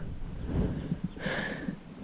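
Wind buffeting the microphone as a low, uneven rumble, with a short higher hiss about a second and a quarter in.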